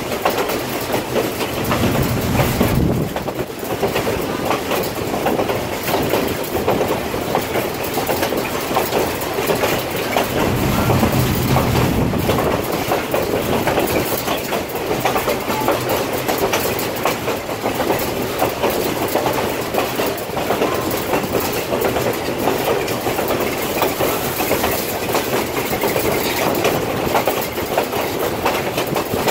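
A moving passenger train heard from aboard: its wheels running steadily on the rails with a continuous rush of noise, and a deeper rumble swelling twice, about two and about eleven seconds in.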